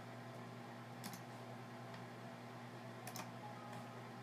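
A few faint computer clicks, in two close pairs about two seconds apart, over a steady low hum.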